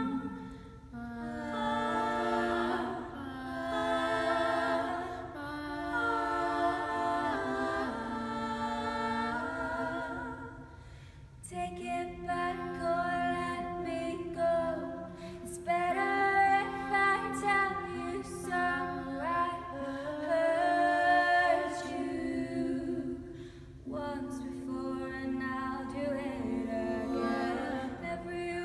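Four women singing a cappella in close harmony in a stone chapel, sustained phrases with brief pauses about 11 and 24 seconds in.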